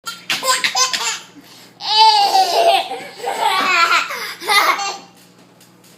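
A baby laughing in a run of short giggling bursts, with a longer, louder laugh about two seconds in; the laughing stops about five seconds in.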